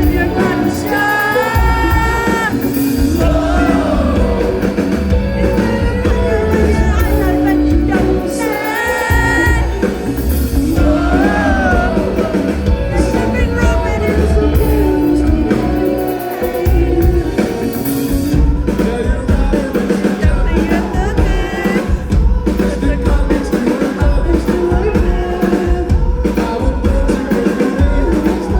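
Rock band playing live with a singer over drums and heavy bass.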